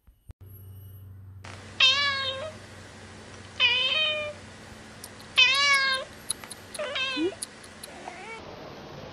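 Domestic cat meowing four times, each meow well under a second long and about two seconds apart, with a fainter fifth meow near the end and a few short ticks between the third and fourth.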